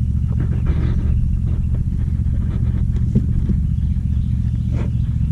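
A steady low rumble, with a few light knocks scattered through it.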